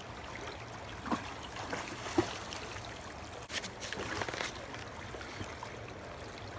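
River water flowing steadily, with a few scattered clicks and scrapes: single clicks about one and two seconds in, and a short cluster a little past halfway.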